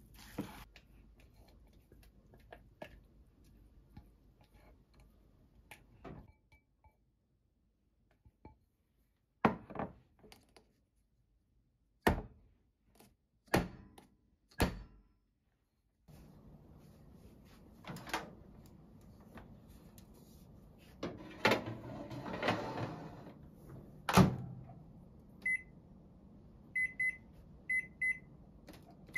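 Kitchen handling sounds: several sharp knocks as a round metal cake tin is handled on the counter, then a stretch of thuds and clatter as the oven is loaded. Near the end comes a run of short, high beeps from a Panasonic microwave-oven combo's control panel as it is set to bake.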